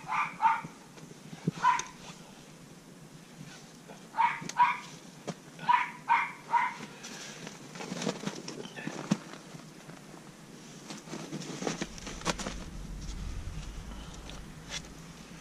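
A dog barking in short runs of one to three barks through the first seven seconds. After that come scattered knocks and scrapes as the foam hive lid is handled and lowered back onto the hive.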